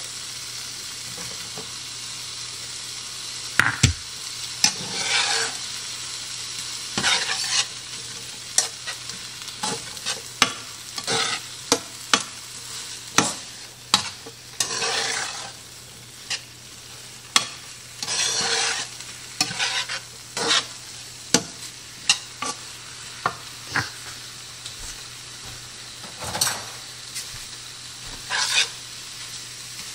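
Frozen mixed vegetables, eggs and chopped green onions frying on high heat in a pan with a steady sizzle. A utensil scrapes and taps against the pan in many irregular strokes as they are stirred.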